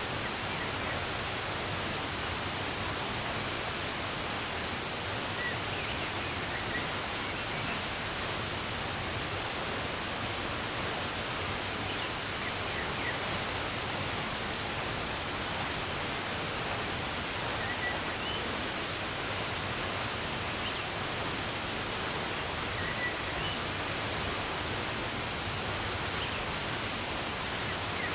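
Steady rushing of running water, with a few faint, sparse bird chirps over it.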